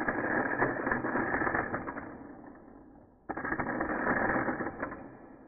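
Tiny 1:64-scale Hot Wheels RC car driving, its small electric motor and drivetrain whirring with a clattery, muffled sound. It comes in two runs: the first tails off about two and a half seconds in, and the second starts sharply just after three seconds and fades away again.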